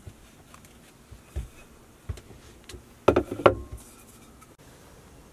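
Wooden lumber pieces being handled: a few scattered knocks, then a quick, loud clatter of several knocks about three seconds in as the pieces of wood bump against each other and the table.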